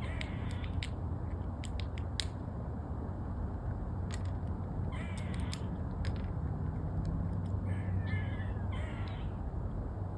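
An animal crying to get in: short whiny cries about five seconds in and again near the end, the later ones falling in pitch. Scattered sharp clicks and a steady low hum run underneath.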